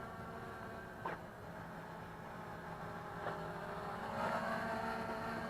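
MJX Bugs 3 quadcopter's brushless motors whining steadily at low throttle, with a couple of light clicks; the whine grows louder and a little higher about four seconds in.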